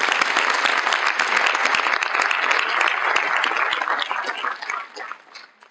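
Audience applauding, dense claps that die away near the end.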